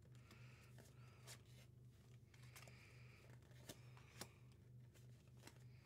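Near silence: a low steady hum with a few faint, scattered ticks and taps, the loudest about four seconds in.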